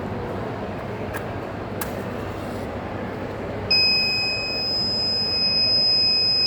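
Piezo buzzer of an Arduino-based gas and explosion detector model sounding one continuous high-pitched tone that switches on suddenly a little over halfway through: the alarm set off by its sensor. Before it, a steady background hum with a couple of faint clicks.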